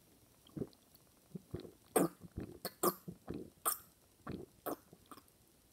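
A man gulping carbonated soda straight from a plastic bottle: a run of short, irregular swallowing gulps, about two to three a second.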